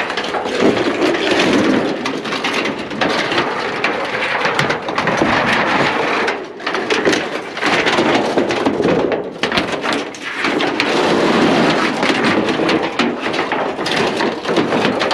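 Thin sheet tin being bent and crumpled, a loud, continuous metallic racket of rumbling and crackling, with brief lulls about six and a half and about nine to ten seconds in.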